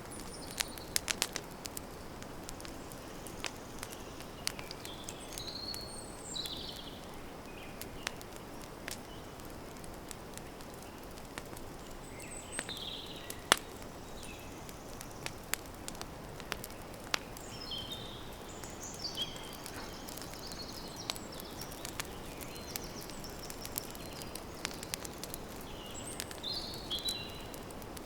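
Campfire crackling, with sharp pops at irregular moments over a steady hiss, one pop louder than the rest about halfway through. Birds chirp in short high calls behind it, several times.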